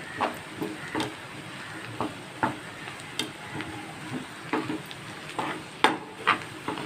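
Gram-flour-coated bitter gourd slices sizzling in hot oil with a steady frying hiss, while a utensil stirs them, giving a dozen or so irregular scrapes and knocks against the pan. They are being fried on until crisp.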